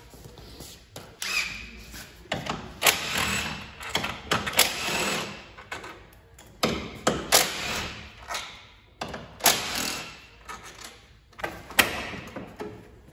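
Irregular clattering, knocking and scraping of plastic and metal parts as a crash-damaged car front end is taken apart by hand, with a few sharp knocks between quieter spells.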